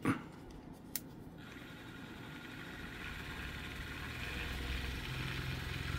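Small electric Vortex Stirrer Turbo paint mixer motor starting up as its speed knob is turned, spinning a jar of thick paint; the hum grows steadily louder as it speeds up. A single click comes about a second in.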